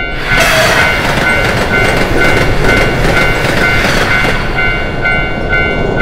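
Japanese railway level-crossing warning bell ringing in a steady two-tone clang, about two strikes a second, while an Enoden train runs over the crossing, its wheels and rails adding a rushing noise that fades after about four seconds.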